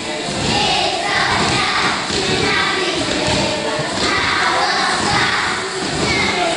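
A group of young children singing together, with dull thumps mixed in throughout.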